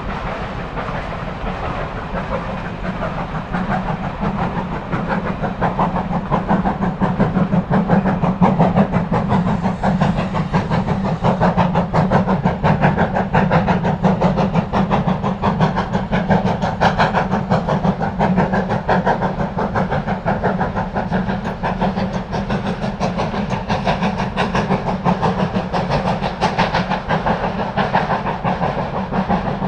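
Steam train running, a dense, even run of rapid beats over a steady low rumble, growing louder over the first several seconds and then holding steady.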